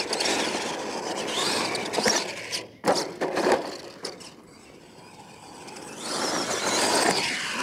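R/C monster truck driving fast across loose dirt, its motor and tyres scrabbling and kicking up dirt; the sound fades as the truck runs away across the field and grows louder again near the end as it comes back.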